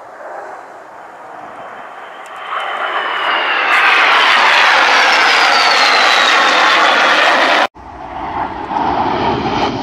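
Formation of Northrop F-5E Tiger II jet fighters flying past, their J85 turbojets building to a loud roar with a high whine that falls in pitch as they pass. The sound cuts off abruptly near the end and gives way to a lower rumble of jet noise.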